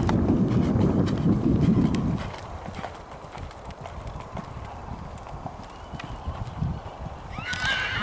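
Hoofbeats of a horse cantering on a sand arena, loud for the first two seconds as it passes close and then fainter as it moves away. A horse whinnies briefly near the end.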